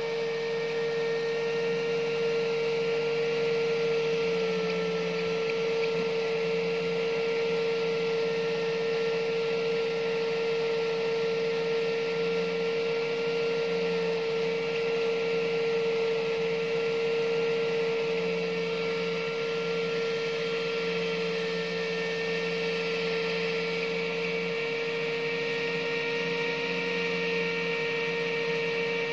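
Steady electrical hum: one strong mid-pitched tone with fainter higher tones above it, unchanging throughout.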